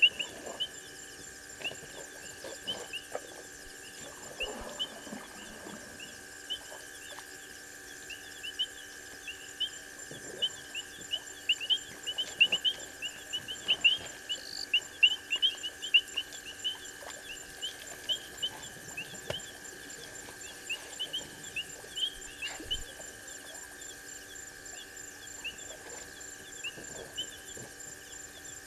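A night chorus of calling animals: many short, rapid chirps repeating several times a second, over a steady high-pitched insect trill.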